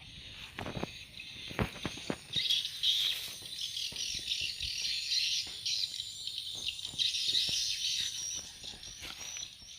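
Dense high-pitched chirping from outdoor wildlife, building about two seconds in and fading near the end, with several sharp knocks and clicks in the first two seconds.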